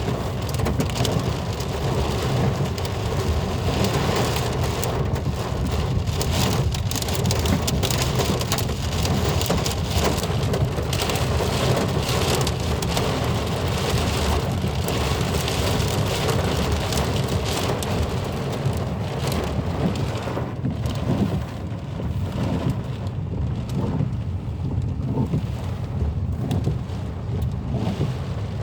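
Heavy rain pouring down with water rushing as a flood, a loud steady wash of noise; the highest hiss thins a little about two-thirds of the way through.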